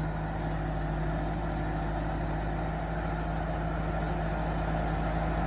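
Vehicle engine idling steadily, an even hum that does not rev or change.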